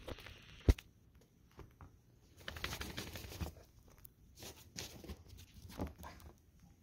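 Footsteps crunching in fresh snow, coming in irregular bursts, with one sharp knock about a second in.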